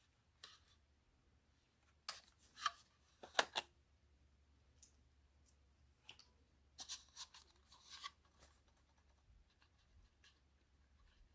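Camera lens component being handled, giving scattered sharp clicks in small clusters of two to four, with quiet stretches between.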